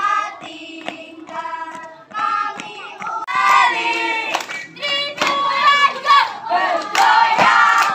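Group of scout children chanting and singing a yel-yel cheer in unison, punctuated by sharp hand claps. About three seconds in, the singing becomes louder and fuller.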